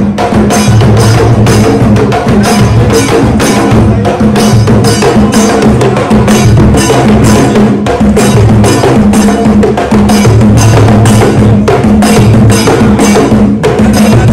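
Loud music driven by drums and sharp wood-block-like strikes, keeping a steady fast beat over a sustained bass line.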